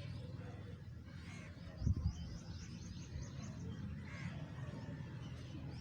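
Low steady background hum, with one soft thump about two seconds in.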